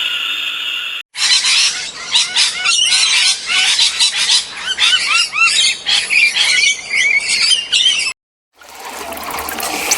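A flock of birds calling together, many overlapping short squawks and chirps, for about seven seconds before cutting off abruptly.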